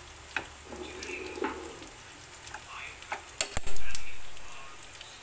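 Ground pork and onions sizzling in a nonstick frying pan while a metal spoon stirs and scrapes through them. About three and a half seconds in, the spoon gives one loud sharp knock against the pan that rings away over about a second.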